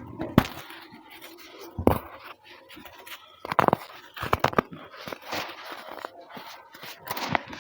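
Packed baking soda being crushed and crumbled: a run of irregular dry crunches and scrapes, with one sharp crack about half a second in.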